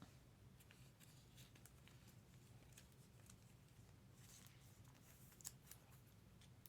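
Near silence: room tone with a few faint, scattered clicks, one a little louder about five and a half seconds in.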